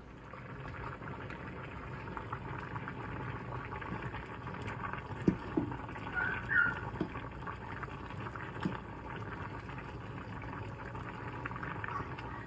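Food cooking on a stovetop: a steady, fine bubbling crackle, with a few knocks about halfway through.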